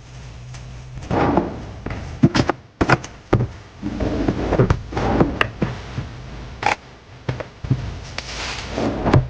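Groceries and drinks being put into a refrigerator: irregular thunks, knocks and clatter of items set down on shelves, with short stretches of rustling packaging.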